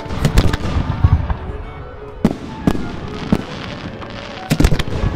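Aerial firework shells bursting in a string of sharp bangs: several in quick succession near the start, single bangs in the middle, and another quick cluster near the end.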